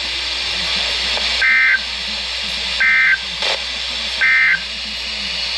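Emergency Alert System end-of-message code on NOAA Weather Radio, marking the end of the alert: three short bursts of digital data tone, about a second and a half apart, over steady radio hiss.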